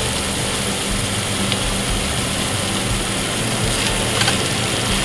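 Marinated pork bulgogi sizzling steadily in a hot nonstick frying pan as green onions are stirred through it, with a couple of light clicks about four seconds in.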